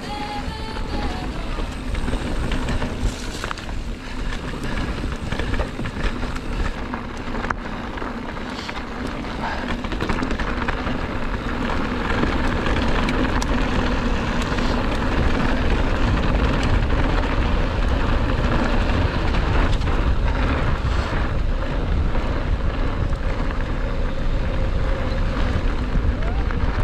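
Mountain bike riding down a dirt trail: wind buffeting the microphone over tyre rumble and rattling from the bike, louder from about ten seconds in.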